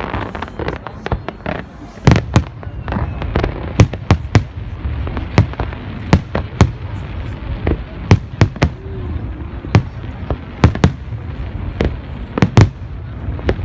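Fireworks display: a steady barrage of sharp firework bangs and cracks, irregular and about two a second, over a continuous low rumble of distant bursts.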